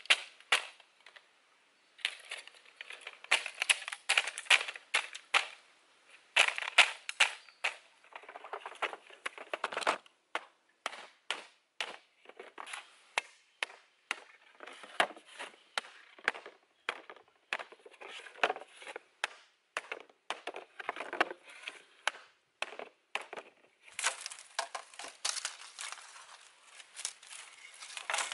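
Bamboo being split and worked by hand: quick runs of sharp cracks and knocks that stop and start in bursts.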